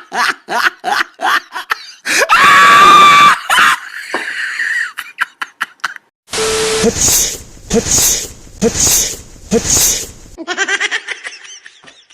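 A person laughs in quick repeated bursts, then lets out a loud, high-pitched scream lasting about a second and a half, about two seconds in. Later come four similar loud bursts about a second apart.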